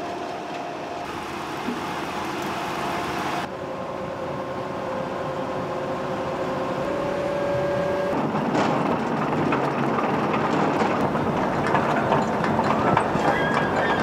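1991 Holmer KRBS self-propelled sugar beet harvester at work: its 14.6-litre Mercedes-Benz V8 engine and drives running with a steady mechanical whine, and beet clattering through the machine. The sound changes abruptly twice, and from about eight seconds in the rattle grows denser and louder.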